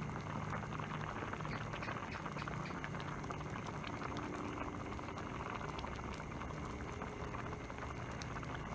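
Fish curry broth with pickled bamboo shoots boiling hard in a pot: a steady bubbling dense with small pops.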